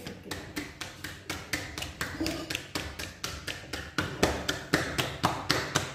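Roti dough being slapped back and forth between bare palms to flatten it by hand: a fast, even patting of about six to seven slaps a second.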